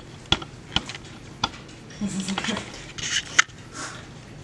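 Camera handling noise picked up by its own microphone: a few sharp clicks and knocks as the camera is moved and zoomed in, with a brief low vocal sound, a hum or giggle, about two seconds in.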